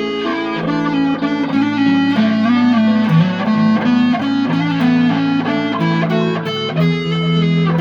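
Electric guitar played through a fuzz pedal: heavily distorted, sustained notes in a riff, changing pitch every fraction of a second.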